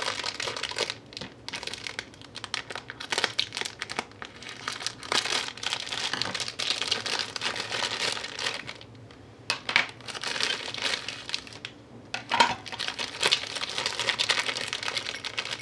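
Clear plastic wrapping crinkling as it is pulled by hand off a small plastic doll chair, in irregular spells with short pauses about nine and twelve seconds in.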